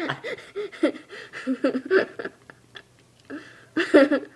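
Indistinct, wordless vocal sounds from a person in short stretches, with a brief lull a little before three seconds in.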